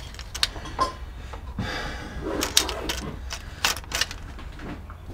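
Handling noise: a string of sharp, irregular clicks and knocks as gear is moved and set in place, over a steady low rumble.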